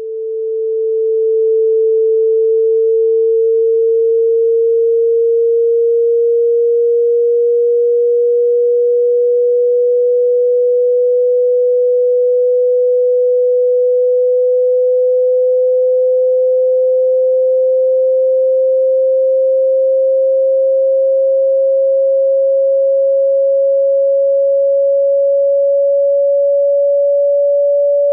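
A single pure sine-wave tone played to shake water out of a wet speaker, fading in over the first couple of seconds and then climbing slowly and steadily in pitch, from a low hum to a slightly higher one.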